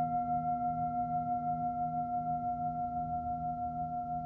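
A singing bowl ringing on after a strike, its tones wavering with a steady pulse and fading slowly. A low pulsing tone runs beneath it.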